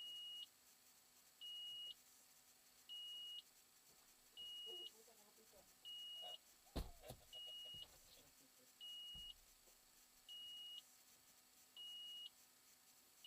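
Electronic warning beeper sounding a steady high single-tone beep, each about half a second long, repeating about every second and a half. A sharp knock comes about halfway through and a dull thud a couple of seconds later.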